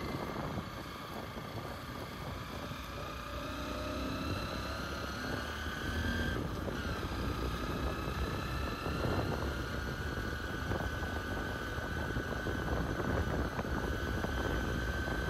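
Motorcycle running while being ridden on the road, with a steady rumble and an engine whine that climbs slowly, drops briefly about six and a half seconds in, then climbs again.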